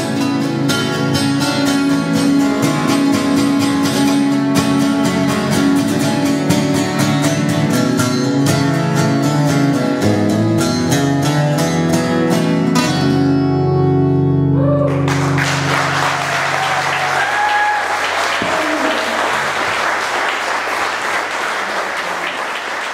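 Live acoustic guitar song, strummed chords ending on a final chord about fifteen seconds in that rings on briefly; the audience then applauds.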